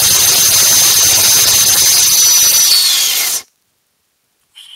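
Gaseous-oxygen/acrylic hybrid rocket motor burning with a loud steady hiss and a high whistle on top. The whistle dips just before the sound cuts off suddenly about three and a half seconds in, as the burn ends.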